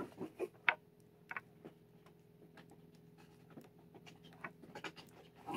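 Faint scattered clicks and taps of hands handling a small electric wax warmer and its plug while plugging it in, over a faint steady hum.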